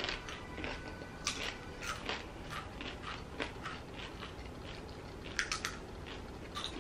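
Doritos tortilla chips being crunched while eaten, a string of short, irregular crisp crunches.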